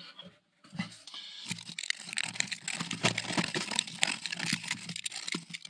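Handling of a flexible corrugated warm-air heater hose: an irregular run of light crinkling rustles and small clicks.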